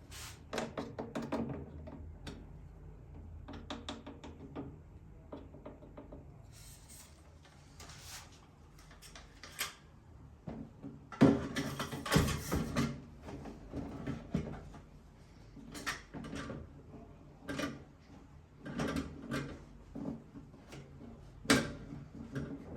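Irregular knocks, clicks and rattles of hand work on installation hardware, the loudest cluster about eleven to thirteen seconds in.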